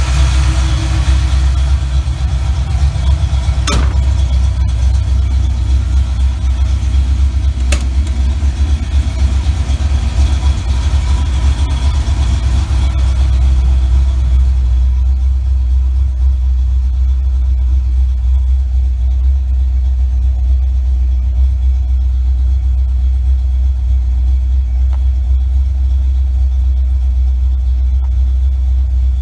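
Fox-body Mustang's 5.0 L (302) small-block Ford V8 idling steadily as a low, even rumble. Partway through, the higher sounds fall away and it is heard muffled from inside the car. Two sharp clicks come in the first eight seconds.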